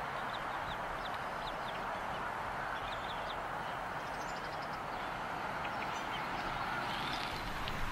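Faint, short, high bird chirps scattered over a steady hiss of outdoor ambience.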